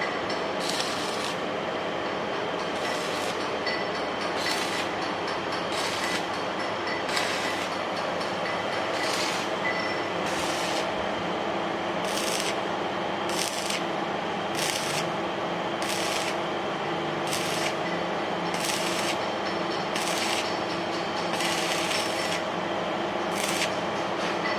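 A motor-driven machine running steadily with a constant hum, and a short scraping, hissing stroke that repeats roughly once a second.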